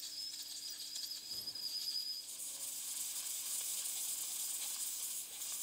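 Faint steady hiss of cleaning spray and compressed air being blown onto ROV subsea connectors, growing stronger about two seconds in.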